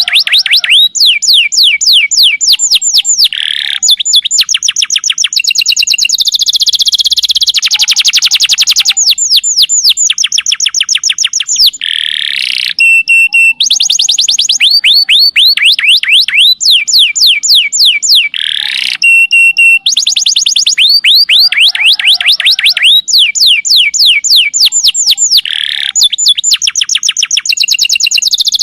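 Domestic canary singing a long, loud, unbroken song of rapid trills: fast runs of falling notes repeated many times a second, broken by short held tones. This is the long 'nembak' song kept to set other canaries singing.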